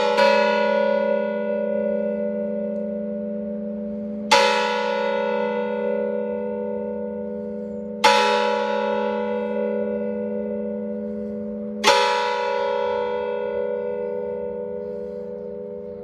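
Rope-rung mission church bells: a quick run of strikes ends right at the start, then three single strikes about four seconds apart, each ringing out and slowly fading into the next.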